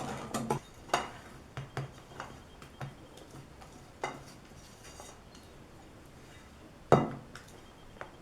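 Irregular light taps and clinks of kitchen utensils against a mixing bowl, with one louder knock about seven seconds in.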